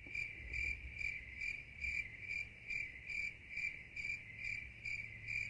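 Crickets-chirping sound effect: an even, high chirp repeating about two and a half times a second, cut in and cut off abruptly.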